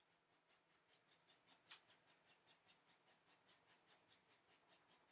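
Near silence with faint, rapid, regular ticking, about five ticks a second, and one slightly louder click partway through.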